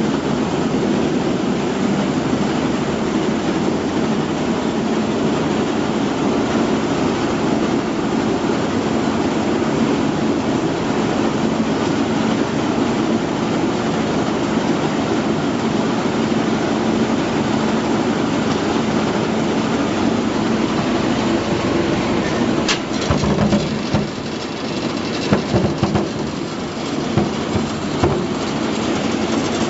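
Potato washing and peeling machine running with a steady mechanical drone. About three-quarters of the way through, irregular knocking and clattering start over it.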